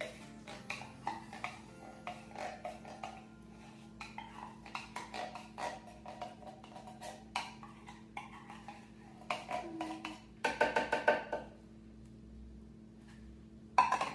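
Repeated irregular knocks and taps on the bottom of an upturned can of sweetened condensed milk, shaken and tapped to coax the thick milk out into a blender jar. About ten and a half seconds in comes a louder cluster of ringing metallic clanks.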